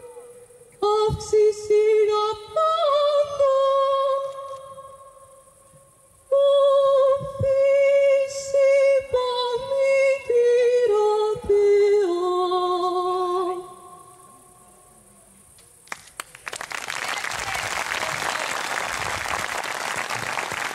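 A solo female voice sings a slow melody in long held notes, in two phrases, ending a little past the middle. After a short pause, an audience breaks into applause.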